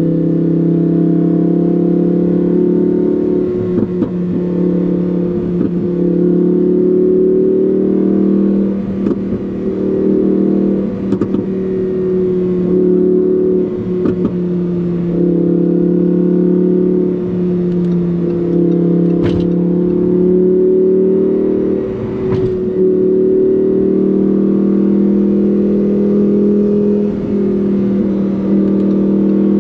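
Lamborghini Huracán Performante's 5.2-litre V10 running under way with a steady, loud drone. About seven brief sharp cracks come through it, most with a short dip in level.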